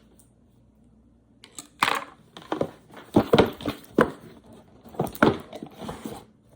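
A package being torn open by hand: packaging tearing and crinkling in an irregular run of sharp rustles, starting about a second and a half in.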